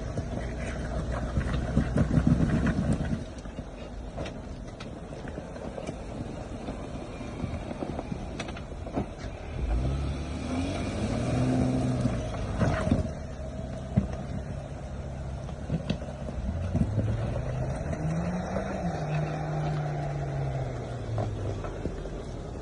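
Suzuki Jimny's engine working off-road, revving up and easing back twice, with occasional sharp knocks.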